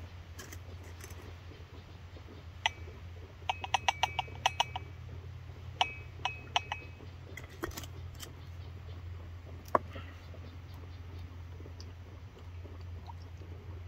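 Clinks of a ceramic coffee mug being tapped and stirred, with jars being handled: a single clink, then a quick run of about eight light clinks, a few more, and one last clink. A low steady hum runs underneath from the lit camp stove burner.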